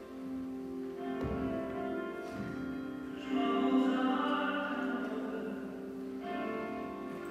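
Slow music: a singer holding long notes over instrumental accompaniment. Two low thumps come between about one and two and a half seconds in.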